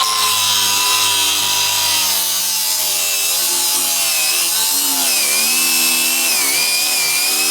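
A hand-held power cutting tool runs continuously, cutting through the old cable. Its high motor whine wavers and sags in pitch as the cut loads it.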